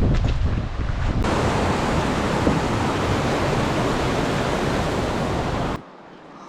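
Wind buffeting the microphone, then from about a second in a steady rush of fast-flowing river water, which cuts off abruptly near the end.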